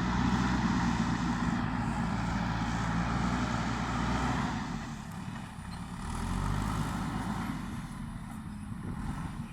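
JCB backhoe loader's diesel engine running under load, its note rising and falling as the machine works: loud for the first few seconds, dropping off about five seconds in, swelling briefly again, then easing.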